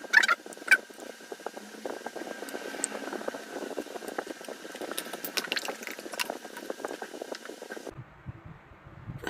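Close-up eating sounds: a few sharp clicks in the first second, then a run of small clicks and mouth noises over a faint steady hum.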